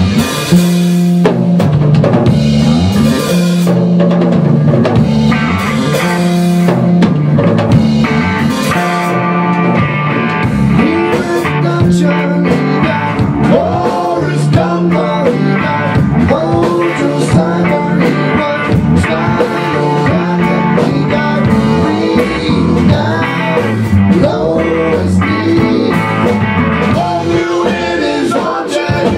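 A live rock band playing: drums on a Tama kit, electric bass and electric guitar, with men's voices singing along from partway through.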